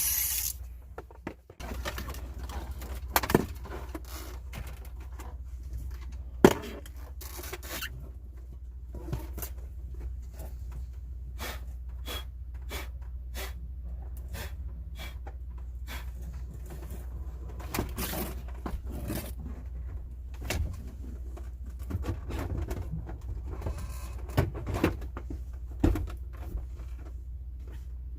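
A small power tool runs down and stops right at the start. Then come scattered clicks and knocks of hand work on metal parts, over a steady low hum, with two sharper knocks about three and six seconds in.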